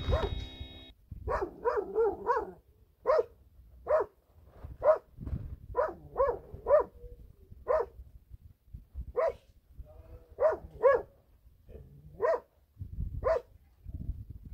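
A dog barking over and over: about seventeen short, fairly high barks, some coming in quick runs of three or four and others spaced a second or more apart.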